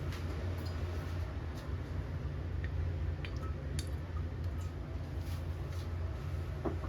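Kitchen handling sounds: scattered light clicks and clinks over a steady low hum, with a slightly louder knock near the end.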